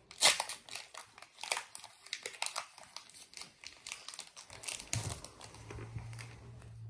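Foil Pokémon booster pack wrapper crinkling in a run of sharp crackles as it is handled and opened, the loudest just after the start. A low steady hum comes in about five seconds in.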